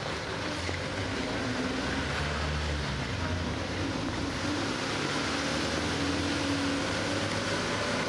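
A motor vehicle's engine running on a city street, a steady low hum over traffic noise.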